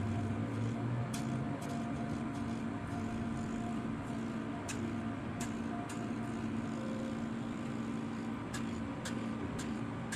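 Steady hum of a small electric motor from a facial treatment machine, its hose-fed handpiece working over the face, with a few faint clicks now and then.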